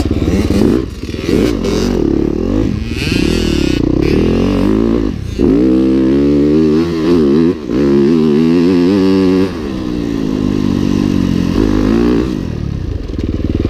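Dirt bike engine revving hard under acceleration, its pitch climbing and dropping again and again. It runs loudest in the middle and eases off somewhat for the last few seconds.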